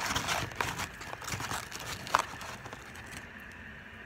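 Paper food wrapper crinkling and crackling in irregular clicks over the first two seconds, ending with one sharp click.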